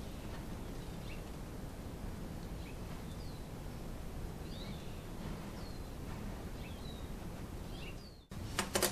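Steady outdoor background noise with faint, short bird chirps scattered throughout. Near the end the sound drops out briefly, then a few sharp clicks follow.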